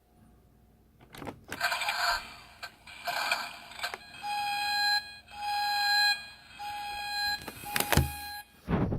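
Tiny-speaker sound effects from a toy Back to the Future DeLorean: a click, two short hissing bursts, then a run of evenly spaced electronic beeps. Sharp clicks and a thump of handling near the end.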